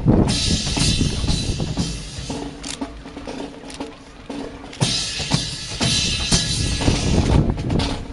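Sharp drum-like percussive hits at uneven intervals, with wind rushing on the microphone in two spells, about the first two seconds and again from about five to seven seconds in.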